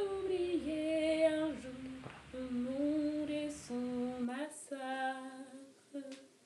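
A woman's voice singing a slow melody alone, with long held notes that glide between pitches, dying away near the end.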